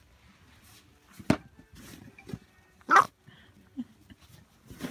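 Corgi puppy giving one short bark about three seconds in, with a sharp click a little earlier.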